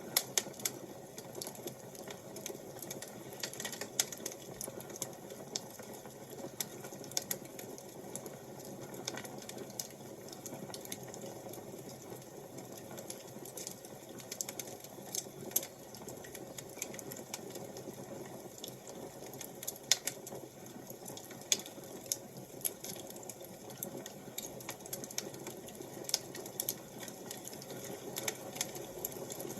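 Wood fire crackling: a steady low hiss with frequent irregular sharp pops and snaps.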